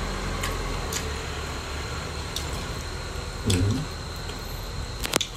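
Quiet eating sounds of a boiled egg-laden frog being pulled apart by hand: soft wet squishing and a few light clicks, with a short low mouth sound about three and a half seconds in. A steady hum runs underneath.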